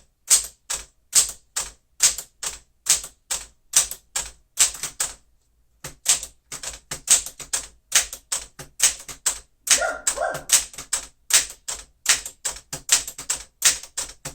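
1961 Smith-Corona Galaxie manual typewriter typing out its row of characters. The type bars strike the platen in a steady run of sharp clacks, about two to three a second, with a pause of about a second around five seconds in.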